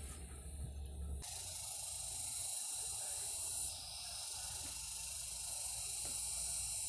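A steady high-pitched hiss over a faint low rumble. It sets in about a second in and dips slightly twice.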